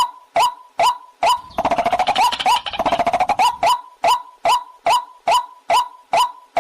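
Recorded waterhen (jal murgi) call played as a lure: a short rising note repeated about two to three times a second, broken by a fast chattering run from about a second and a half to three and a half seconds in.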